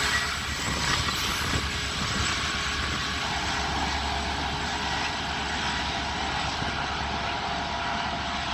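Diesel locomotive at the rear of a freight train of empty coal wagons drawing away, its engine drone steady and slowly fading. The louder rumble of the passing wagons drops away just as it begins.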